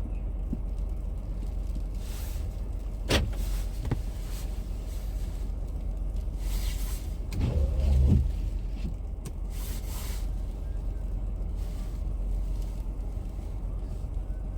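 Steady low rumble of an idling vehicle engine, with two sharp clicks about three and four seconds in and a brief louder whine that rises and falls about halfway through.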